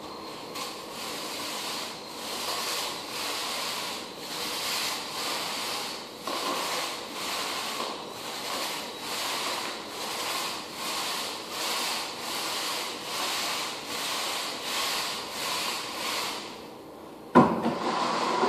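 Rhythmic rubbing strokes, about three every two seconds, stop shortly before a single sharp knock near the end.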